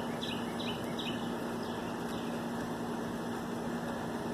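A songbird singing a quick run of four short, high, falling chirps in the first second or so, then two fainter ones, over a steady low hum and constant background noise.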